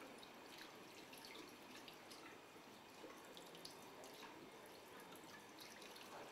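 Faint running tap water with hands being rinsed under it in a sink, with many small splashes and drips as the soap is washed off.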